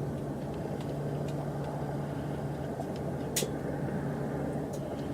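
A steady low hum with a constant low tone, a few faint ticks, and one sharper click about three and a half seconds in.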